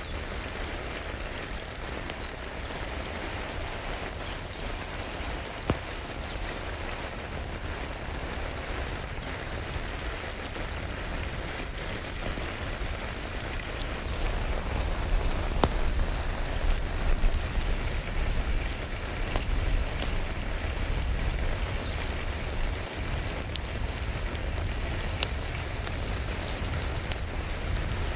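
Steady rain falling, with occasional sharp crackles and pops from a wood fire in a fireplace. The rain swells slightly about halfway through.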